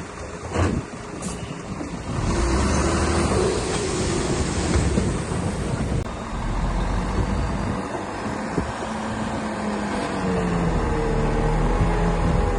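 Diesel engine of a DH17 C2 LGP bulldozer running, getting louder about two seconds in as it works, its pitch wavering up and down near the end.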